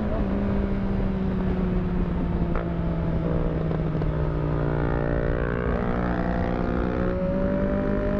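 Motorcycle engine running under way: the revs ease slowly down for about five seconds, step near six seconds in, then climb steadily.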